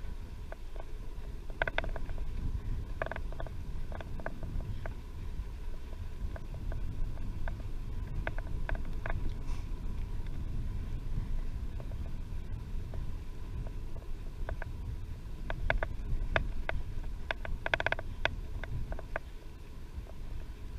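Wind buffeting the camera's microphone on a moving bicycle, a steady low rumble, with scattered sharp clicks and rattles that cluster near the end.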